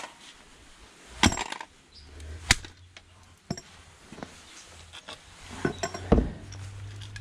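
Sledgehammer blows on an old plastic hair dryer lying on concrete, smashing the casing open to get at the heating element and motor. Several hard, uneven strikes: heavy ones about a second in and two and a half seconds in, a cluster near the end, and lighter knocks between.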